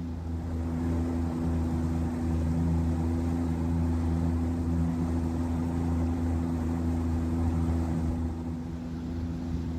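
Boat engine running steadily at an even, low hum, easing off slightly near the end.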